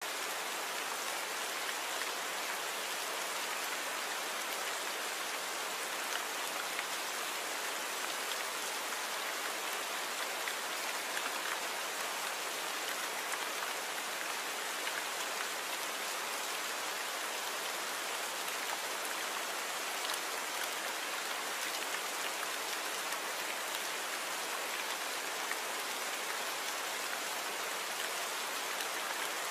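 Torrential rain pouring down in a steady, even hiss that never lets up.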